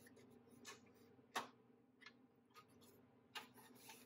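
Small sharp clicks and taps of metal toy-truck parts being handled and fitted together, about six in all, the loudest about a second and a half in, over a faint steady hum.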